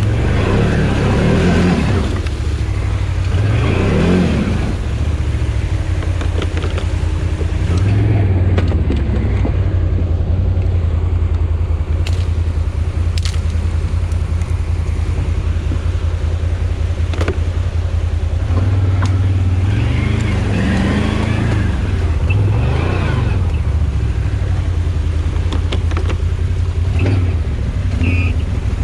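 Can-Am Outlander 1000 XMR ATV's V-twin engine running steadily while riding, its pitch rising and falling with the throttle, with a few sharp knocks along the way.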